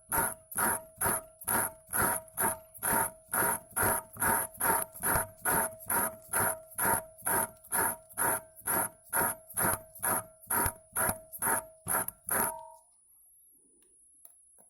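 Rhythmic scraping strokes of a cutting disc worked by hand against a glass LED bulb, about two to three a second, each stroke making the glass ring. The strokes stop about thirteen seconds in.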